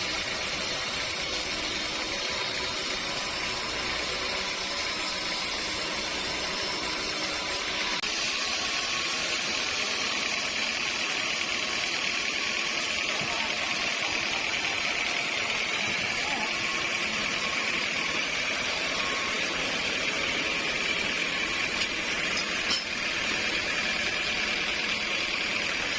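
Sawmill machinery running steadily: a continuous mechanical noise with a steady high tone, which changes character about eight seconds in.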